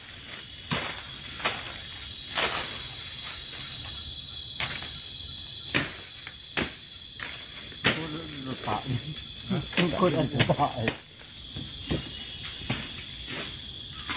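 Loud, steady, high-pitched drone of forest insects, joined by a second, higher insect tone about two-thirds of the way through, with scattered sharp knocks.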